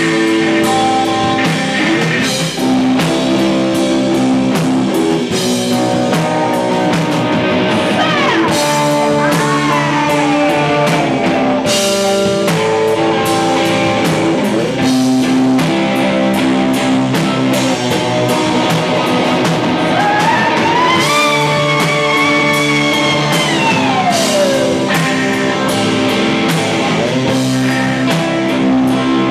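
Live rock band playing loudly: electric guitar, bass guitar and drum kit, with regular drum hits under held guitar chords. Twice a high line slides down in pitch.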